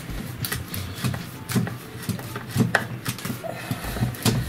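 Hand screwdriver turning a self-tapping screw with a press washer through a plastic tube into a table leg. The work gives a run of irregular clicks and knocks, about one or two a second.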